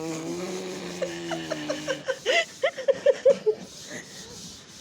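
Laughter: a run of short, quick giggles, about four or five a second, after a long held low voiced tone.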